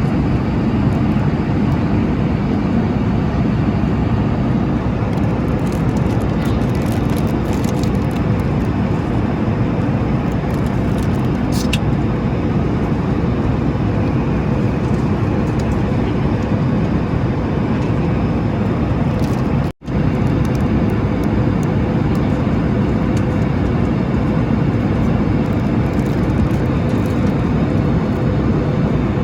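Steady rushing drone of a Boeing 737 MAX 8's cabin, the engine and airflow noise heard from an economy seat. It cuts out for an instant about twenty seconds in, with a few faint ticks earlier on.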